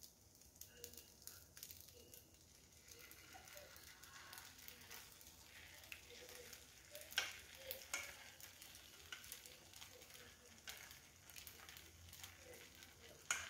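Faint sizzling and frying from the hot pan as thick béchamel sauce is poured over pasta and chicken. A few soft clicks and scrapes come as a silicone spatula pushes the sauce out of the steel pot.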